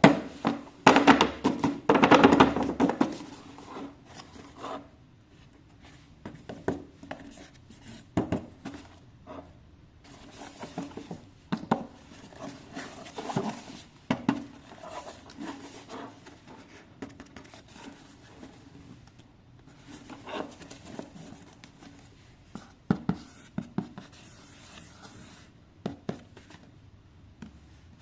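Hands handling a toy car and its packaging: irregular scratching, rubbing and clicks, with a louder flurry of handling noise about a second in.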